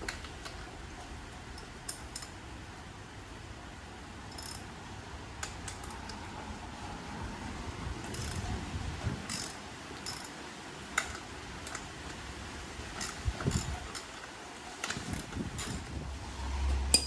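Socket ratchet clicking in short runs, with scattered clinks of the tool on metal, as 12 mm nuts on a motorcycle's front end are cracked loose.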